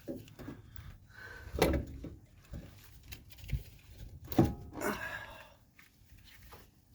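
Irregular knocks and clunks as a front strut assembly is worked up into its strut tower, its top-mount studs being lined up with the tower's bolt holes. Two knocks stand out, about a second and a half in and about four and a half seconds in.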